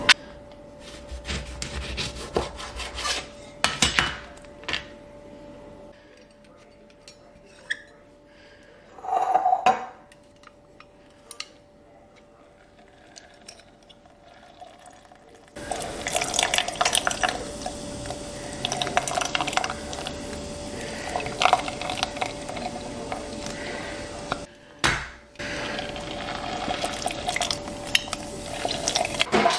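Kitchen clatter: dishes and cutlery clinking, with the sound of water, across several short cuts.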